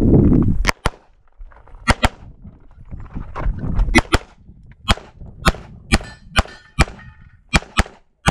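Walther PDP pistol fired rapidly through a practical shooting stage: about a dozen sharp shots, some in quick pairs and some single, with short pauses between groups.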